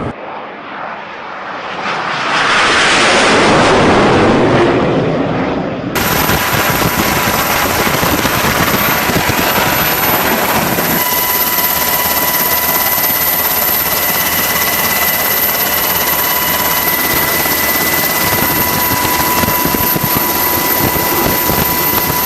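Aircraft noise: a rushing swell that rises and fades over the first few seconds, then, after a sudden cut, a steady engine rush with thin, high, steady whine tones coming in about halfway through.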